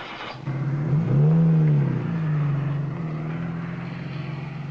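Car engine revving up as the car pulls away and gathers speed, then running at a steady pitch as it cruises.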